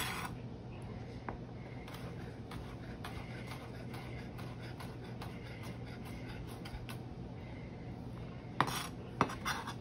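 Chef's knife finely dicing jalapeño on a plastic cutting board: faint, soft taps and scrapes of the blade. Near the end come a few louder knocks and scrapes, which fit the diced pepper being pushed together with the knife.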